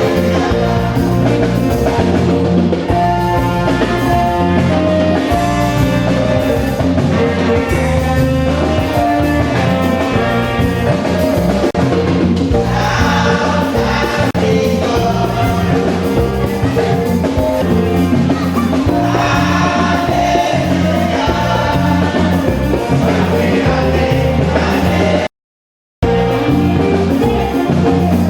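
Gospel music with drums and singing, steady and loud; the sound cuts out completely for under a second near the end.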